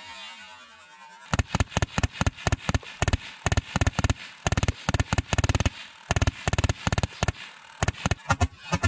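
Repeated bursts of rapid full-auto fire from a pellet gun, sharp cracks fired in quick clusters starting about a second in, with the longest burst near the middle.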